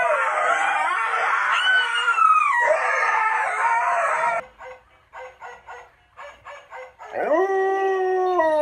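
Dogs howling, one clip after another: a long howl over other pitched sound that cuts off suddenly after about four seconds, then a few seconds of quiet short sounds in quick clusters, then a new long, clear howl that starts about seven seconds in, rises and holds.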